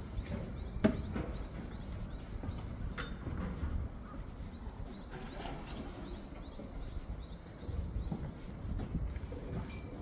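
Steady low background rumble, with a sharp tap about a second in and a fainter one near three seconds. A faint short high chirp repeats a few times a second throughout.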